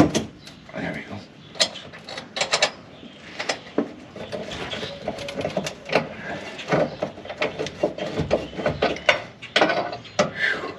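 Hand tools clicking and clanking irregularly, with the ratcheting clicks of a socket wrench working a bolt.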